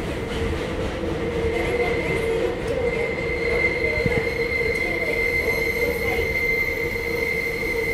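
Busan Metro Line 1 subway car heard from inside as it runs into its terminal station: a steady rumble, with a high-pitched wheel squeal that sets in about a second and a half in and holds.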